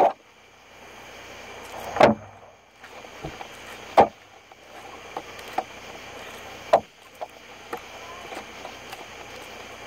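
Catfish being handled at a table: three sharp knocks, about two, four and seven seconds in, and a few lighter ones, over a faint steady hiss.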